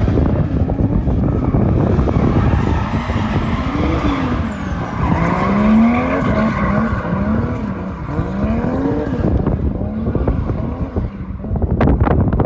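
JZ-swapped Nissan S13 drifting: its engine revs rise and fall again and again as the rear tyres spin and squeal.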